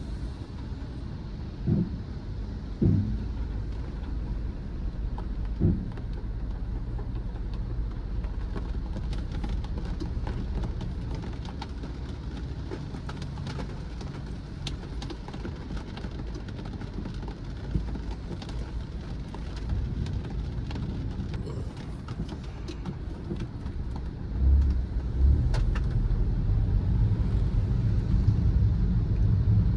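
A car being driven, with a steady low road and engine rumble and scattered faint ticks over it. There are three short thumps in the first six seconds, and the rumble grows clearly louder about 25 seconds in.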